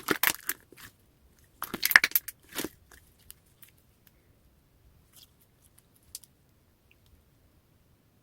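Clear slime being squeezed and worked, giving crackly clicks and pops of trapped air. It comes in two busy bursts in the first three seconds, then only scattered faint clicks.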